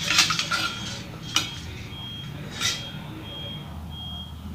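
Metal ladle clattering and clinking against a cooking pot while boiled goat meat is scooped out, with a sharp clink about a second and a half in. A faint, short high beep repeats now and then in the background.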